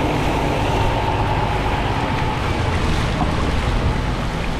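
Steady rushing noise of typhoon wind and water, with gusts buffeting the microphone.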